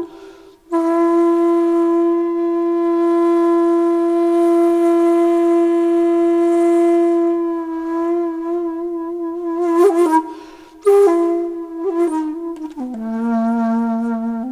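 Background music of a solo flute: one long held note that begins to waver with vibrato, then after two short breaths a few shorter notes stepping down to a lower pitch.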